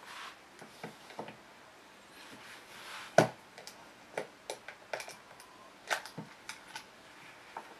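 A small wooden box with a brass latch and corner caps being handled on a table: one sharp knock about three seconds in as it is gripped and set against the tabletop, then a run of small clicks and taps as the metal clasp is worked and the lid eased open.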